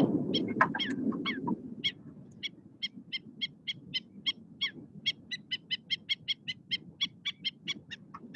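Black-necked stilts giving repeated sharp alarm calls: a few falling notes, then a rapid steady series of yapping calls several a second, the parents' noise meant to draw people away from their chicks. A low rumble fades away over the first second and a half.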